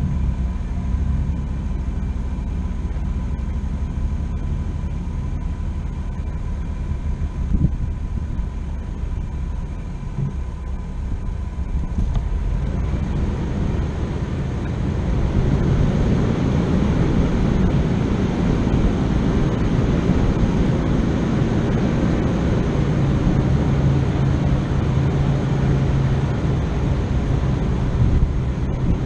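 Off-road vehicle engine running under load, a steady low rumble that grows louder about halfway through.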